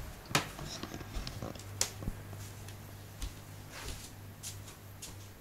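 Scattered soft taps and knocks of footsteps and of the handheld phone being moved while walking across a wooden floor and foam mats, over a low steady hum.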